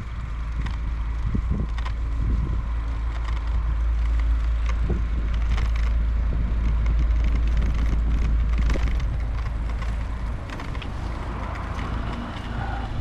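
Riding noise from a bicycle on the move: a steady low rumble of wind on the action camera's microphone that eases about ten seconds in, with scattered rattles and knocks from the bike over the path surface and road traffic behind.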